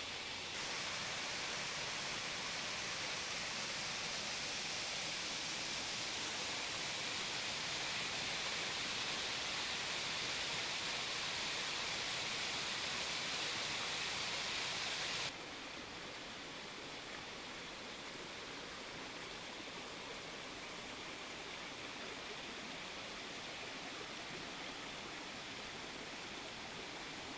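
Small forest waterfall: a steady rush of falling water. About fifteen seconds in it drops suddenly to the quieter, even flow of a shallow rocky stream.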